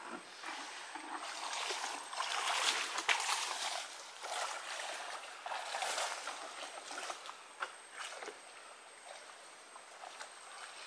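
Shallow water sloshing and splashing irregularly as a person wades through it, stronger in the first seven seconds and fading off toward the end.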